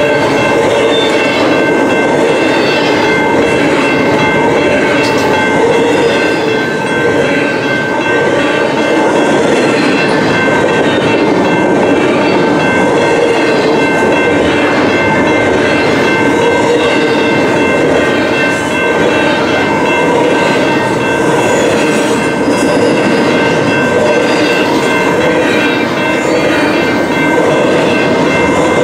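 Double-stack container cars of a long freight train rolling past at speed: a steady loud rumble with a regular clatter of wheels over the rail, and several thin steady high ringing tones over it.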